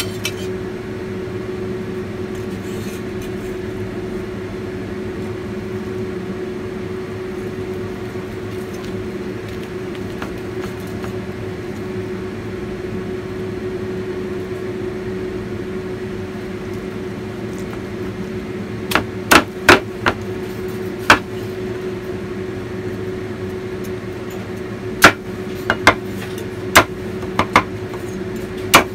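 A cleaver chopping roast pork on a chopping board: sharp chops, four about two-thirds in and six more in quick succession near the end, over a steady low hum.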